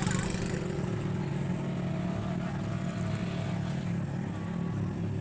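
ATV engine running at a steady, even speed.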